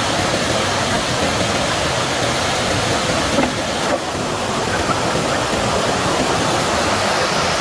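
Steady rush of flowing water, a continuous even noise, with a slight drop in level about four seconds in.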